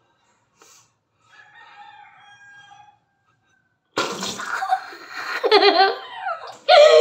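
A child bursts out laughing through a mouthful of water about four seconds in, spluttering and spraying it out, then goes on laughing loudly in bursts that slide up and down in pitch.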